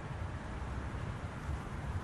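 Steady low rumble with a faint hiss, background noise with no distinct event.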